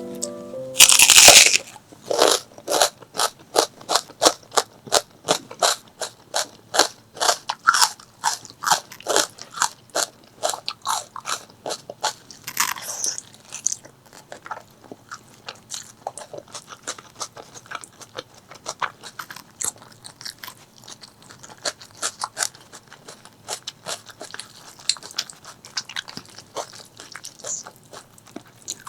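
Close-miked eating: a loud crunchy bite about a second in, then steady rhythmic crunchy chewing, about two to three chews a second, growing softer about halfway through.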